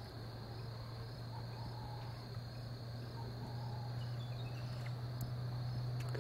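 Steady high-pitched trilling of insects, such as crickets, over a steady low hum.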